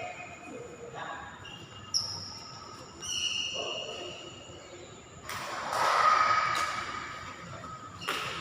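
Badminton rally: sharp racket strikes on the shuttlecock, spaced one to a few seconds apart, with short high squeaks between them around the middle.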